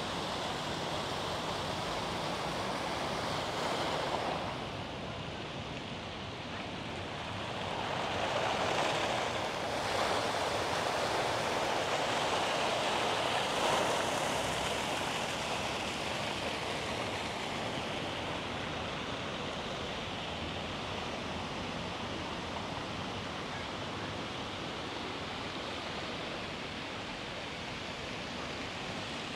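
Steady rushing outdoor noise that swells for several seconds in the middle, then settles back.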